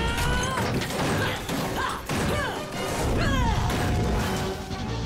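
Animated robot-battle soundtrack: action music under crashing impact sound effects, with several swooping, falling sweeps.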